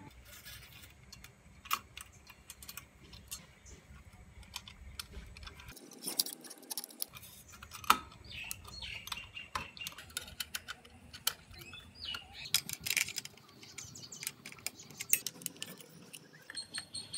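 Irregular small metallic clicks and taps of bicycle rear brake hardware being handled: a coil return spring and cable clamp being fitted to the hub brake lever, with a small spanner on the clamp bolt near the end.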